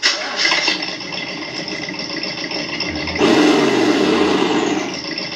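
Team Associated ESS-One engine sound module playing its default simulated engine sound, triggered by a tap of the radio throttle. It starts up suddenly and idles steadily, then revs louder about three seconds in and winds back down toward idle near the end.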